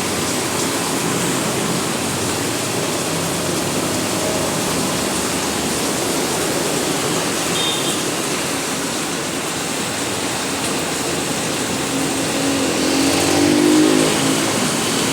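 Heavy rain pouring down steadily as an even hiss. About twelve seconds in, a louder engine-like tone rises and then fades.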